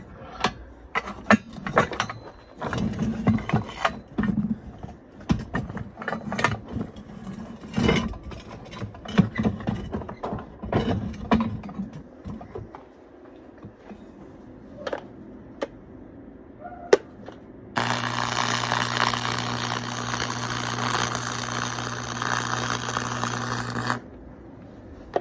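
Metal pieces clanking and knocking as they are handled and positioned, then about eighteen seconds in a stick-welding arc is struck on the muffler pipe: a steady crackling hiss with a low buzzing hum that runs for about six seconds and cuts off suddenly.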